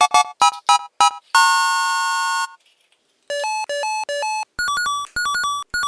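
Electronic game-style jingle: a quick run of short beeps, a held chime-like chord, a brief silence, then a stepping beeping melody.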